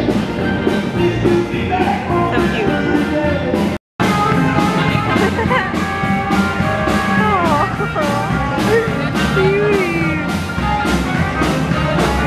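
Background music with a steady beat, cutting out for a moment about four seconds in.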